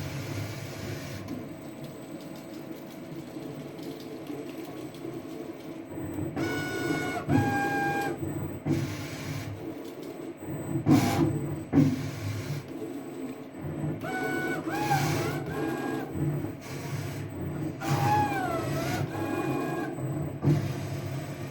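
CNC router axis drives moving the tool head: pitched motor whines start and stop in short moves, some bending up and down in pitch as the head traces curves, over a steady low machine hum. A single sharp click comes about halfway through.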